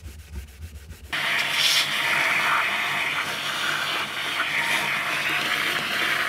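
A rag wiping a metal plate faintly, then about a second in a vacuum cleaner comes on with a loud, steady rush of air as its hose nozzle sucks debris out of the saildrive housing.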